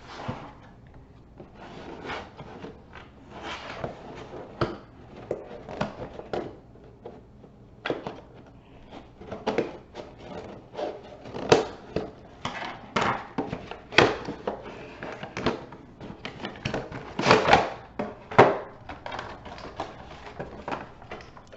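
Action-figure packaging being handled and opened: irregular clicks, knocks and rustles of cardboard and plastic, several sharper knocks near the middle and toward the end.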